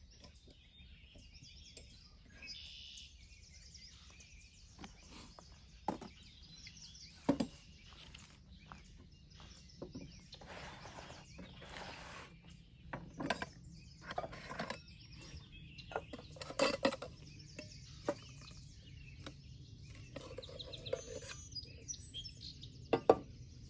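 Songbirds chirping and singing in the background, broken by scattered sharp knocks and clicks of cooking gear being handled while the omelet is prepared. The loudest knocks come about 7 seconds in and near the end.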